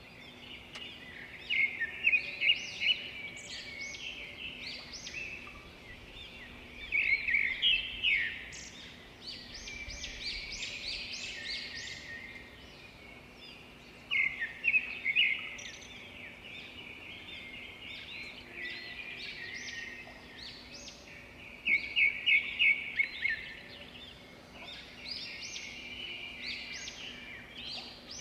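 Small birds chirping and singing, in quick trilled phrases that come back every six or seven seconds over a faint steady background hum.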